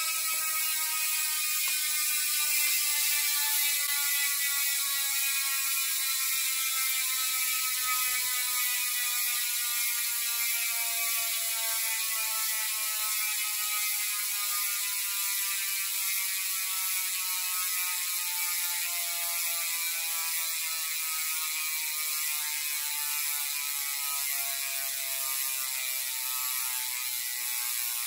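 Rear hub freehub ratcheting as the hand-spun bike wheel coasts freely: a fast, even buzz of pawl clicks whose pitch slowly falls as the wheel loses speed.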